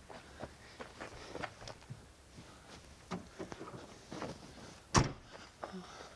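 Scattered rustles and light knocks as a wrapped body is shoved into a car's boot, then the hatchback tailgate of a Mercedes-Benz A160 slams shut once, about five seconds in, the loudest sound.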